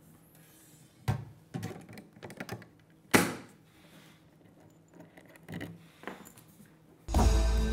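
Scattered clicks and knocks of the Zega Pro topcase and its lock hardware being handled, with a sharp knock about three seconds in. Music starts abruptly near the end.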